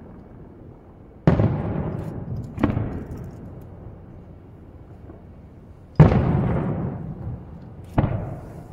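Aerial firework shells bursting: four sharp booms, the first two about a second and a half apart, then two more about two seconds apart, each trailing off in a rolling echo.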